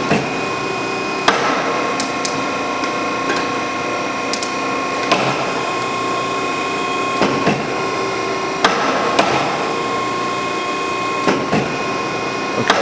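7.5 hp hydraulic pump unit of an Allsteel 20-ton CNC hydraulic press brake running with a steady whine, with about seven sharp mechanical knocks at uneven intervals.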